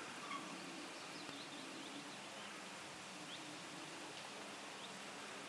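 Faint open-air countryside ambience with a few short, distant bird chirps scattered through it.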